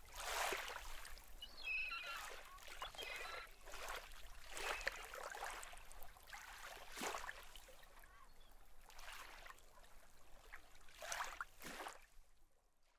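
Small waves washing on a lake shore, one wash swelling and falling back about every two seconds, fading out near the end.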